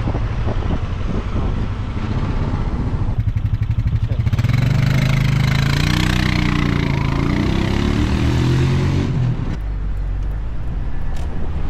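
Vehicle engine rumbling, then revving and accelerating for about five seconds from about four seconds in, its pitch rising and falling, before it settles back to a low rumble near the end.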